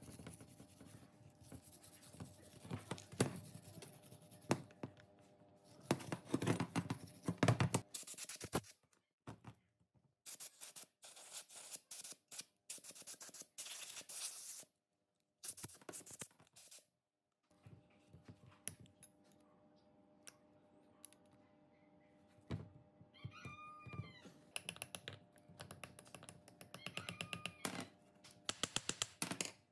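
Wire brush scrubbing grime from the metal housing of an old heavy-duty pneumatic impact wrench, then intermittent knocks and scrapes as the wrench and hand tools are handled on a steel checker-plate bench. A cat meows briefly near the end.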